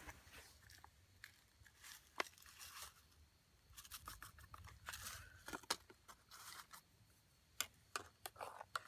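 Faint crinkling and tearing of a small packet being opened, with scattered small clicks that grow busier in the second half.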